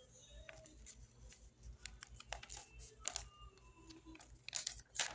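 A sheet of office paper being handled and folded: scattered crisp rustles and sharp creasing clicks, the loudest a couple of quick crinkles near the end.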